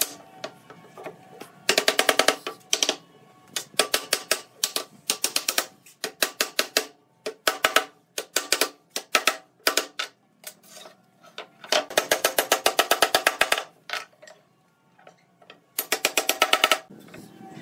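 Quick runs of light hammer taps on wood, knocking the tenons of a wooden frame home into their mortises. They come in about six bursts of rapid taps, the longest about two seconds in and about twelve seconds in, with short pauses between.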